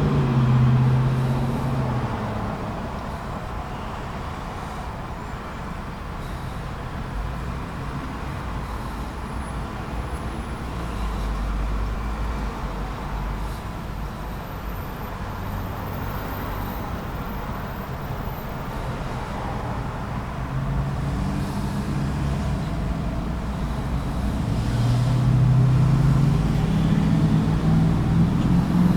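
Road traffic at a busy intersection: a continuous wash of passing vehicles. A nearby engine's low hum is strong in the first couple of seconds and builds again over the last several seconds.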